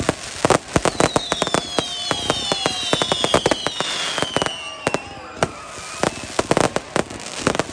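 Fireworks going off in quick, irregular bangs and crackles, with several whistling fireworks gliding down in pitch from about one to five seconds in.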